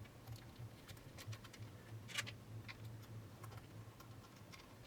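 Faint small clicks and ticks of metal washers and nuts being handled and twisted by hand onto longboard truck mounting screws, with one sharper click about two seconds in, over a steady low hum.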